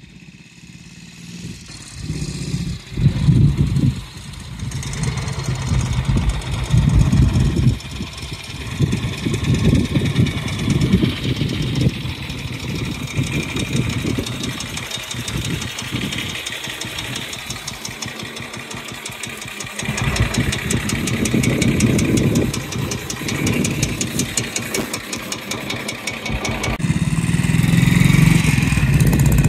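1945 BSA WM20's 500cc side-valve single-cylinder engine. It grows louder as the bike comes closer, runs at idle through the middle, and is louder again near the end as the bike pulls away.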